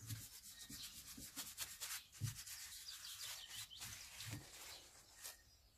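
Faint rubbing and scraping of nitrile-gloved hands turning and working a Stihl HT 75 pole pruner's gear head onto its shaft tube, with many small crackly ticks and one last click near the end.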